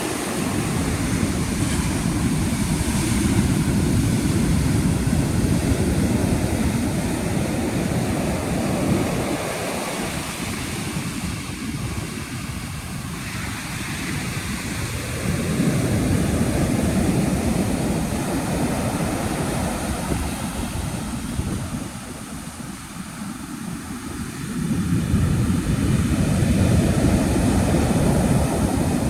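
Atlantic surf: waves breaking and washing up the beach in three long, rushing surges, with quieter lulls between them.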